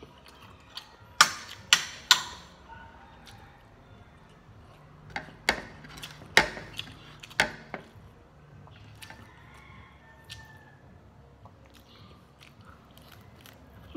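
Close-up eating sounds from a person biting and chewing a fried roll: sharp, crisp clicks in two bunches, three just after the start and three more around the middle, with quieter wet chewing between them.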